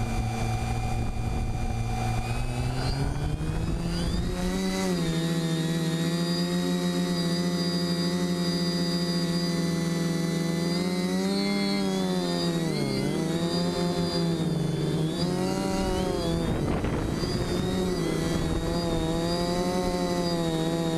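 Quadcopter's electric motors and propellers whining steadily as heard from the onboard camera, rising in pitch a few seconds in as the throttle comes up for takeoff. The pitch dips and recovers several times in the second half as the throttle is worked in flight.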